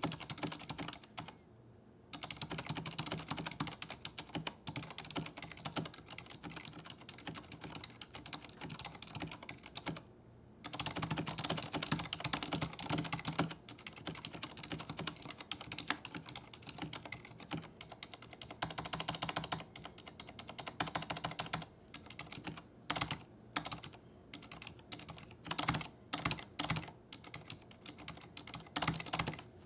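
Fast, continuous typing on a mechanical keyboard with Cherry MX switches: dense, irregular key clacks with brief pauses. The strongest stretch comes about a third of the way in.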